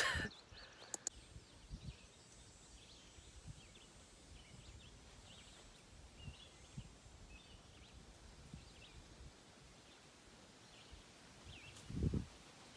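Quiet outdoor ambience with scattered faint bird chirps over the low thuds of footsteps and a hand-held phone camera being carried, and a louder low bump of handling near the end.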